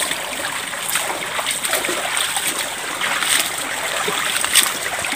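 Water running and trickling in a small irrigation channel through a bamboo screen, with a few brief splashes. It flows freely because the intake is not yet choked with dry leaves.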